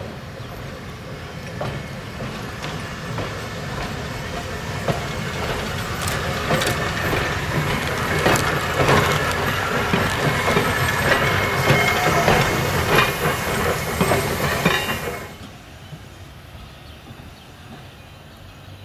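A Pacific Electric interurban trolley car approaching and passing close by, growing louder, its wheels clicking over the rail joints. The sound cuts off abruptly about fifteen seconds in, leaving a quieter steady background.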